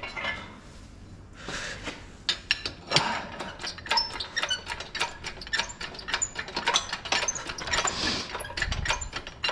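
Shop engine hoist lifting an engine hung in chains: a quick, irregular run of metallic clicks and clinks from the chain links and hoist as the load is taken up, starting about two seconds in.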